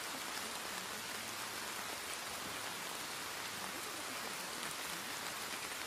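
Steady recorded rain: an even hiss with a light patter of drops, used as the masking layer of a subliminal affirmation track.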